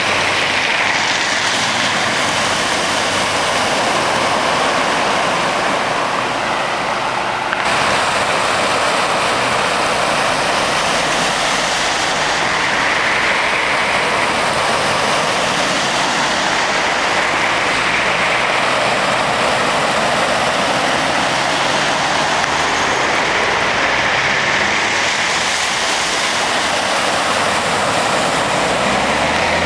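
Floodwater rushing across a road while vehicles drive through it, their wheels throwing up splashing spray; the wash swells several times as vehicles pass.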